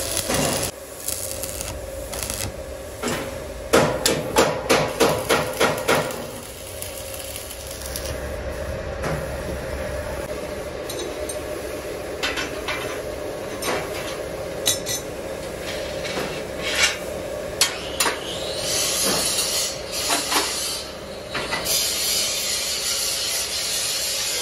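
Steel fabrication work: a hammer striking a steel frame in a quick run of about ten blows about four seconds in, then scattered clanks of metal parts over a steady hum.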